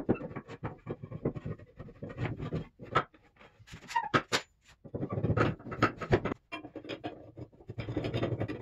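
Steel pipes sliding through waxed holes in plywood vise jaws, with a string of irregular knocks, clicks and short scrapes of metal pipe against wood.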